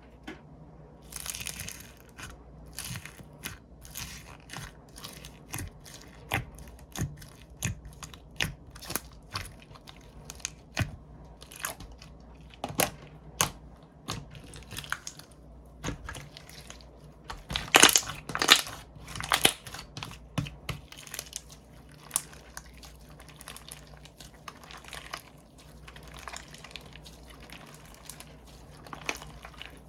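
Close-miked crackling, crinkling and sharp clicking from hands handling something soft and plastic, with a louder burst of crackles about eighteen seconds in.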